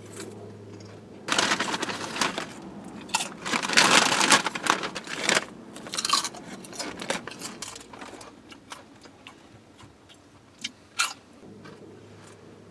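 A bag of chips crinkling and rustling in several loud bursts through the first half, followed by scattered light clicks and small rustles.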